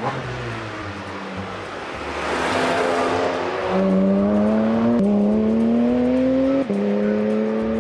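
Porsche 718 Spyder RS's 4.0-litre naturally aspirated flat-six: the car sweeps past with a rush of noise about two to three seconds in, then the engine pulls hard under acceleration. Its note rises steadily and drops sharply at two quick upshifts, about five and six and a half seconds in.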